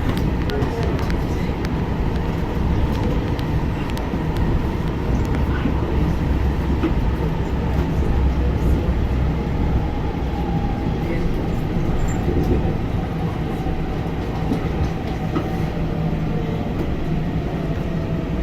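Washington Metro subway train running steadily, a continuous rumble of wheels on rail with scattered faint clicks, heard from inside the car.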